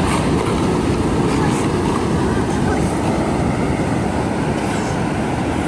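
Loud, steady rushing noise, heaviest in the low end: wind buffeting the microphone over the sound of ocean surf.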